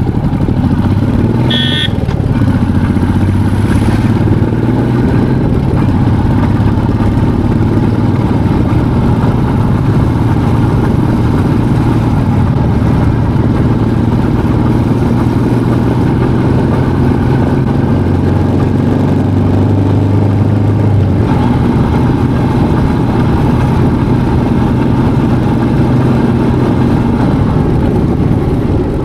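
Motorcycle engine running steadily while riding on a mountain road. The engine note shifts about twenty-one seconds in, and there is a brief higher-pitched tone near the start.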